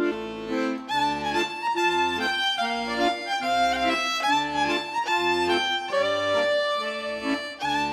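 Background music led by a fiddle, with a steady rhythmic bass line.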